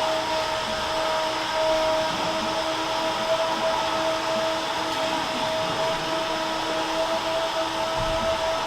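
Steady hum of milking parlor machinery, a constant mechanical drone with a steady whining tone over it.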